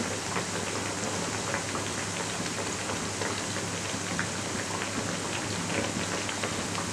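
Mathri deep-frying in hot ghee in a kadhai on low flame: a steady sizzle dotted with many small crackles and pops.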